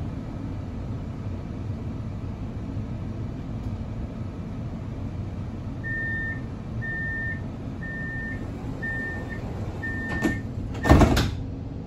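CAF Urbos tram's door-closing warning: a run of five short high beeps, about one a second, over the steady low hum of the tram standing at the stop. Then the doors slide shut with a thud near the end, the loudest sound here.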